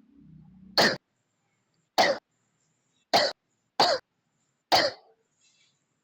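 A person coughing: five short, sharp single coughs, spaced roughly a second apart.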